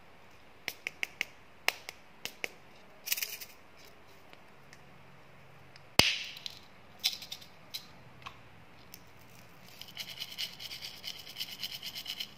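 Small plastic can-shaped candy container handled with a few light clicks and taps, then its plastic cap pops off with a sharp click about six seconds in. Near the end, tiny hard candy pellets rattle out of the can in a quick run of small ticks.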